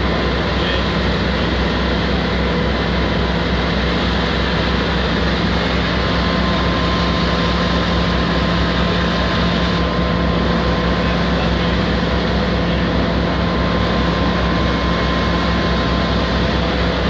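Fire engine's engine and pump running steadily, a constant loud drone with a low hum and faint steady whines above it, while it supplies water to the hoses and aerial ladder.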